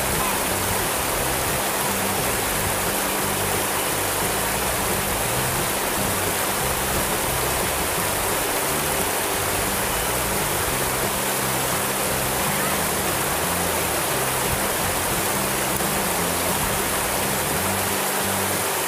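Shallow river water rushing steadily over a low rock cascade.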